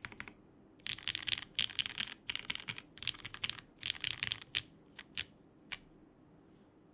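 Typing on a Geonworks F2-84 mechanical keyboard with lubed and filmed Cherry MX Hyperglide Black linear switches, GMK keycaps and an aluminium plate: quick runs of key strokes, thinning to three single key presses about five seconds in, then stopping.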